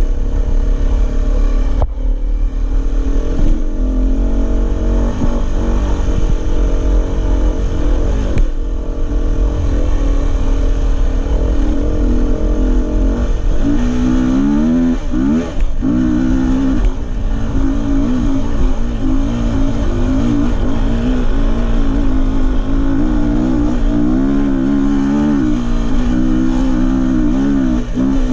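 Dirt bike engine running under throttle, its pitch rising and falling as the rider revs and shifts. The revving grows stronger and more frequent about halfway through, as the bike starts up a steep dirt hill. A heavy low rumble of wind on the microphone runs underneath.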